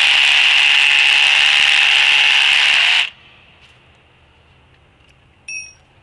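Cordless drill with a long masonry bit boring into a concrete slab, running steadily at full speed and stopping suddenly about three seconds in. Near the end there is a brief ringing tone.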